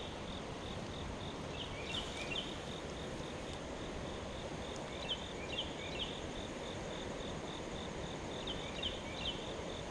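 Crickets chirping in a steady, evenly pulsing high trill over a soft hiss of outdoor background noise, with short high chirps in little groups of two or three every few seconds.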